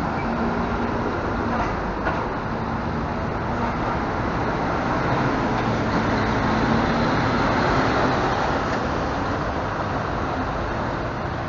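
Marcopolo double-decker coach's diesel engine running as the bus pulls slowly past at close range and drives off. The engine sound swells as the rear of the bus passes, about six to eight seconds in.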